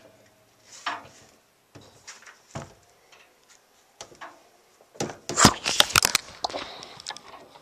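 Handling sounds at a wooden closet door: a few soft knocks and rustles, then a quick run of sharp clicks and knocks from about five seconds in as the door is worked shut.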